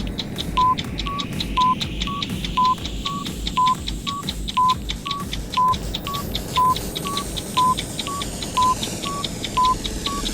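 Countdown-timer sound effect in its last ten seconds: short electronic beeps alternating between two pitches twice a second, over fast clock-like ticks and a low pulse. A rising high sweep builds from about six seconds in.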